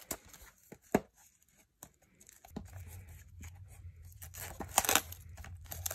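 Plastic shrink wrap being torn and crinkled off a hardcover mediabook by hand: irregular crackles and rips, the loudest near the end. A low steady hum comes in about halfway through.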